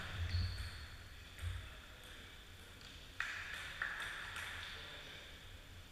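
Table tennis ball clicking, a few separate hits and bounces spaced unevenly, each with a short echo from a large hall.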